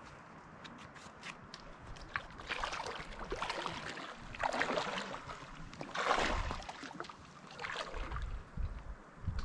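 Footsteps wading through shallow lake water: about four sloshing splashes, roughly one every second and a half, after a few light ticks at the start.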